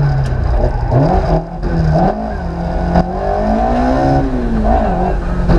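Ford Escort Mk II rally car's 2-litre naturally aspirated Cosworth engine heard from inside the cabin, its note rising and falling as the driver accelerates and lifts. It dips briefly about one and a half seconds in, then climbs to a peak just past four seconds and falls away.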